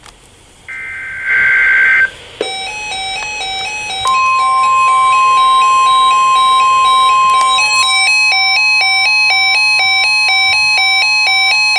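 NOAA Weather Radio alert signalling: a short warbling two-pitch digital data burst (a SAME header) about a second in, then a chiming pattern of alternating electronic alert beeps. At four seconds the steady 1050 Hz Weather Radio warning alarm tone joins in, and the beeps quicken near eight seconds. Together they mark the start of a new alert, here a tornado watch.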